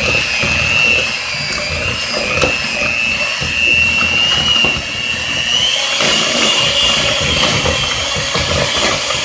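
Electric hand mixer running steadily, its beaters creaming cream cheese in a bowl, with a high motor whine that wavers slightly in pitch.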